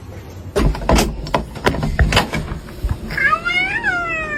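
A quick run of knocks and thumps, then one long cat meow that rises and falls in pitch near the end.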